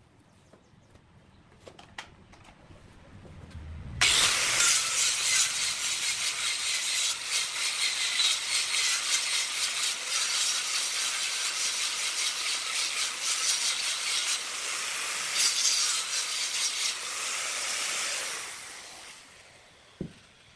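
Handheld angle grinder with an abrasive disc sanding the outside of a redwood vase. After a low hum as the motor spins up, a loud, steady grinding hiss starts abruptly about four seconds in and runs for about fourteen seconds, then dies away as the grinder winds down. A single knock near the end.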